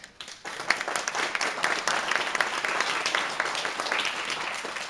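Audience applauding, many hands clapping together; it starts suddenly.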